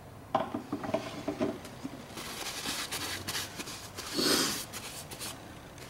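Motor oil being poured through a funnel into the dry-sump oil tank of a Polaris Sportsman 500 HO quad: it starts suddenly with short glugs, then trickles and splashes with a louder gurgle about four seconds in, and stops shortly before the end.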